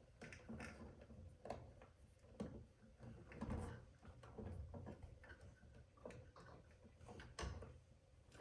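Faint, irregular small clicks and taps of insulated electrical wires being handled and joined in a wall switch box.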